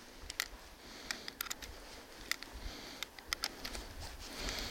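Brass .357 Magnum cartridges clicking into the cylinder of a Smith & Wesson 586 revolver as they are stripped off a rubber speed strip: a string of light, irregularly spaced metallic clicks.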